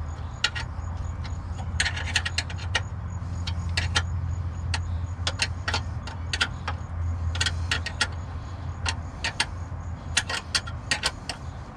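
Sharp metallic clicks in short irregular clusters as the clutch cable is tightened, over a steady low hum.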